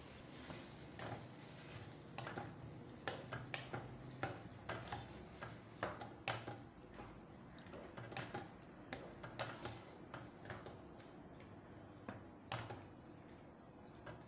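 Plastic spatula knocking and scraping against a nonstick wok while stirring wet bottle gourd and moong dal kootu: faint, irregular clicks and scrapes, a few a second. A faint sizzle fades out about a second in.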